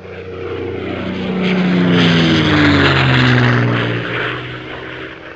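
An airplane flying past: an engine drone that swells to its loudest midway, drops in pitch as it passes, then fades away.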